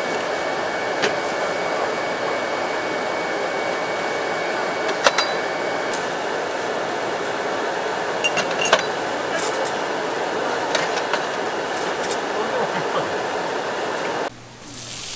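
Steady background din of a busy food stall, with scattered sharp clinks and clicks of utensils or cookware. About a second before the end it cuts off abruptly and a quieter sound takes over.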